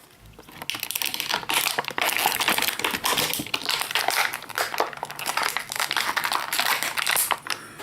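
Crinkling and rustling of a plastic Shopkins blind bag being torn open and handled, a dense crackle that starts just under a second in and stops shortly before the end.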